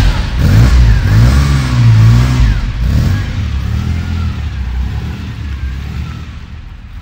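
Classic Ferrari Dino's V6 engine revving in several blips, the pitch rising and falling, then settling and growing quieter toward the end.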